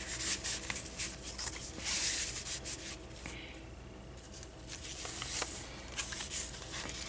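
Paper and card rustling and sliding as a card is tucked into a paper pocket of a handmade journal and the pages are turned. The rustling is busiest for the first couple of seconds, then softer with a few light scrapes.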